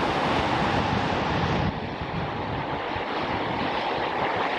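Small waterfall spilling over a rock ledge into a stream: a steady rush of falling water.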